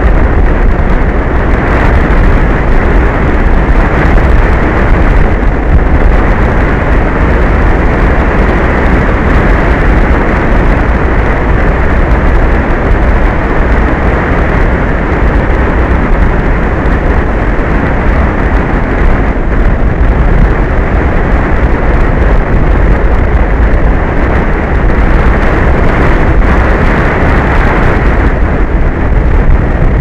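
Strong wind buffeting an outdoor microphone: a loud, steady rumbling noise with no breaks.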